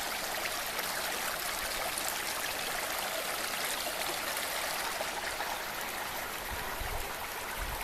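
Woodland creek running full after rain, a steady rush of flowing water.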